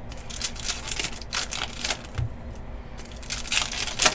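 Trading cards and a foil pack wrapper being handled: a series of short, irregular rustles and crinkles, with the loudest near the end.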